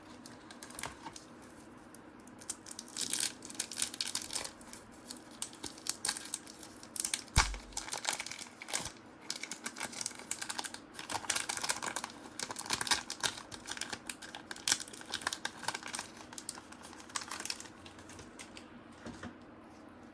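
Trading card pack wrapper crinkling and cards being handled and flipped, with many quick light clicks and crackles. One dull thump about seven seconds in.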